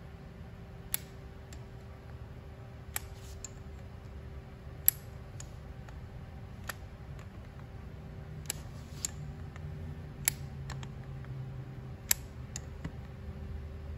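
Sharp metal clicks and taps, about a dozen at irregular intervals, as a dial bore gauge is worked into steel connecting-rod big ends to measure rod bearing clearance, over a steady low hum.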